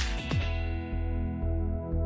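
Background music: a few quick falling swoops in the first half-second, then steady held notes over a pulsing low beat.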